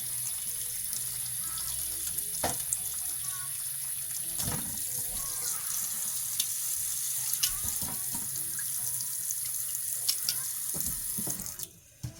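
Kitchen tap running into a sink, with a few knocks of things handled under the water; the water shuts off near the end.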